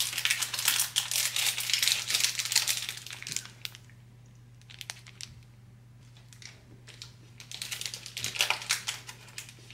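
Foil protein-bar wrapper crinkling as it is peeled back, for about three seconds. A quieter stretch with a few faint clicks follows, then the wrapper crinkles again near the end.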